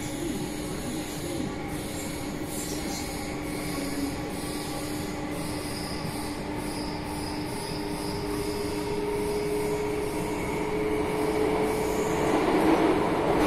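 Alstom Metropolis metro train heard from inside the passenger car while running between stations: a steady rumble with a steady motor tone. A second, higher tone joins about halfway through, and the noise builds to a loud swell near the end.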